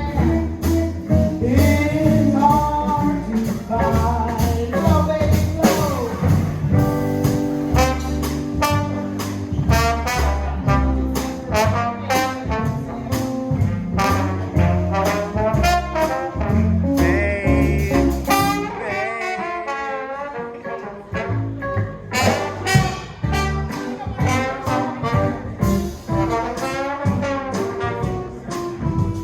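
Jazz music led by brass horns over a steady bass and drum beat; the bass drops out briefly about twenty seconds in before the full band comes back.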